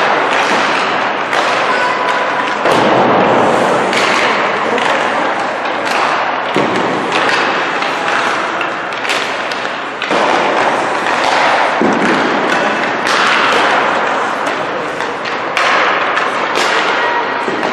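Ice hockey warm-up noise: pucks and sticks thudding repeatedly against the boards and ice over a steady hiss of skates, echoing in a large arena.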